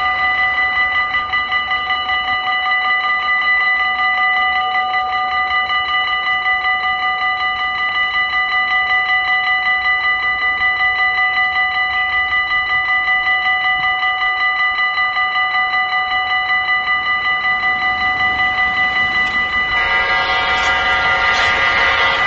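Level-crossing warning bell ringing in a rapid, even pulse, warning of an approaching train. Near the end an oncoming train sounds its horn over the bell.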